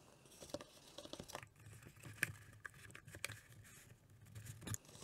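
A hard drive's metal casing slid into a snug folded cardboard sleeve: soft scraping of cardboard against metal, with several small taps and knocks as the drive and case are handled on the mat.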